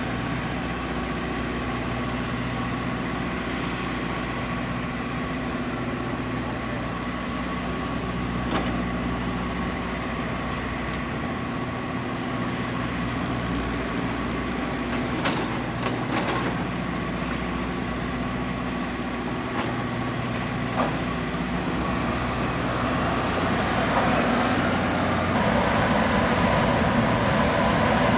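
Boeing 929 jetfoil's gas turbines running with a steady drone; a few sharp clicks, and near the end it grows louder as a high steady whine sets in.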